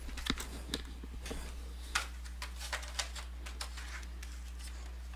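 Light ticks and taps as a cardboard trading-card box and its cards are handled, over a steady low hum. The handling stops about three and a half seconds in.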